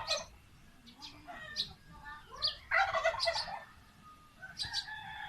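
A domestic turkey gobbling, with small birds chirping around it.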